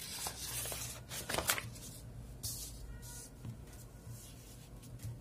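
Sheets of paper being handled and swapped, a rustle with a few sharp crinkles in the first second and a half, then only faint handling noise.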